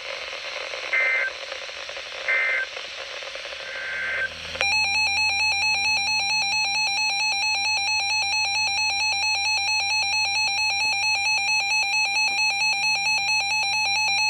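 Emergency Alert System broadcast: three short screeching bursts of SAME digital header data, then about four and a half seconds in the loud EAS attention tone starts, a harsh pulsing alarm tone that carries on to the end.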